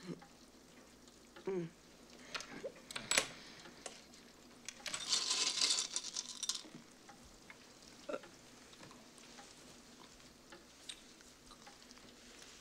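A woman lying in bed breathing out in one long, breathy exhale of about two seconds, with a few faint short vocal sounds around it and a light click about three seconds in.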